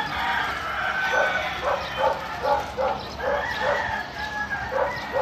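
A dog barking repeatedly in short high yips, about three a second.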